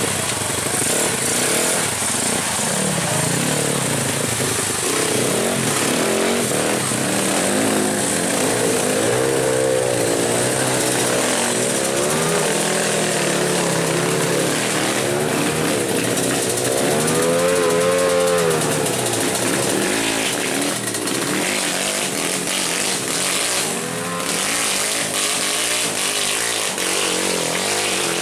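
Off-road trail motorcycle engines running and revving, their pitch rising and falling again and again, most strongly through the middle of the stretch.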